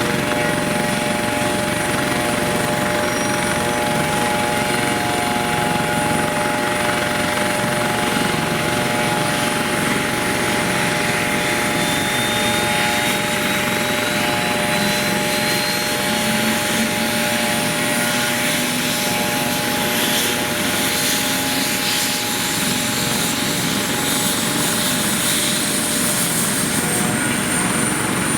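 AS365 Dauphin helicopter's twin turboshaft engines and rotor running steadily, with a high turbine whine that rises slowly in pitch through the second half.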